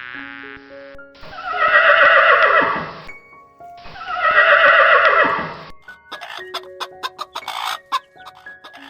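A horse whinnying twice, each neigh about two seconds long and falling in pitch. A run of short clicks follows near the end.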